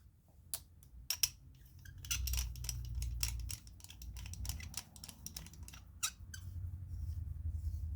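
Irregular small clicks, taps and scrapes of hands fitting parts into a lightsaber hilt, over a low rumble from the handling.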